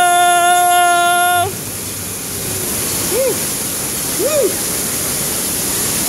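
Water rushing steadily down a water slide, with a long held yell on one steady pitch that cuts off about a second and a half in, then two short rising-and-falling whoops.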